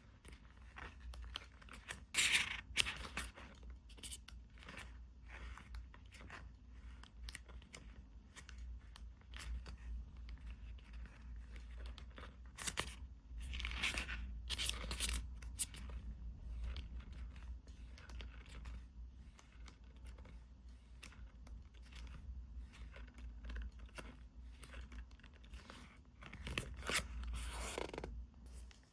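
Close hand-handling of packaging and stationery items being unwrapped: scattered taps, scrapes and crinkles, with a few louder rustling or tearing bursts about two seconds in, around the middle and near the end.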